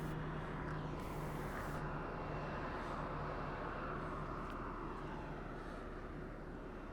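Distant jet airliner engine noise swelling and then fading, over a steady low hum.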